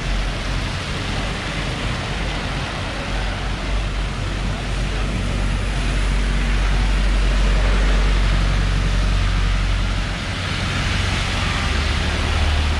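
Street traffic on a rain-wet road: a passing vehicle's low engine rumble builds to its loudest about eight seconds in, then eases, over a steady hiss.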